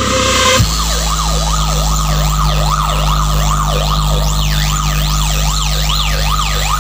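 Siren sound effect played through a festival DJ sound system: a tone sweeping up and down about twice a second over a steady low bass drone. It comes in suddenly about half a second in.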